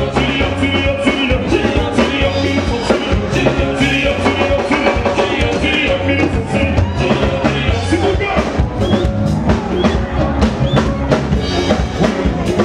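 Upbeat music with drums and a bass line keeping a steady beat.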